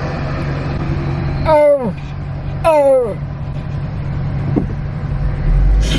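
Two loud falling vocal whoops from a person, one about a second and a half in and another about a second later, over the steady hum of a car's engine and road noise heard from inside the cabin. A low rumble swells near the end.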